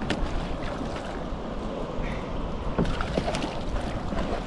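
Wind on the microphone and choppy sea water lapping and slapping against a plastic kayak hull, with a sharp splash right at the start.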